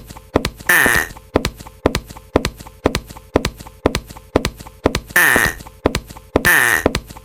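Cartoon sound effects: a regular clip-clop-like knocking about twice a second, broken by three loud hissing bursts.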